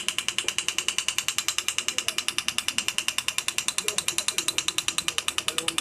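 Fotona medical laser firing a rapid, even train of pulses, each a sharp click, as it is applied to the soft palate to treat snoring.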